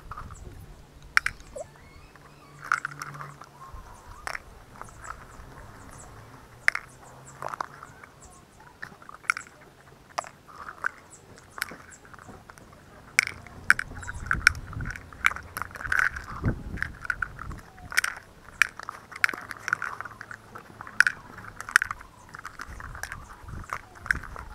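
A yellow Labrador nosing among plastic cups and crunching treats: a run of sharp clicks and knocks from the cups and the dog's chewing, busier in the second half.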